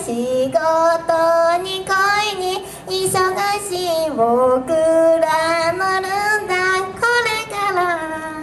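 Young girls' voices singing a J-pop idol song live, with backing music; the notes are held long and steady, one phrase after another.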